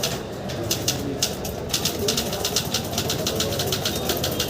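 Typewriter keys struck in fast runs, a quick string of sharp clacks at several keystrokes a second, over a low murmur of background voices.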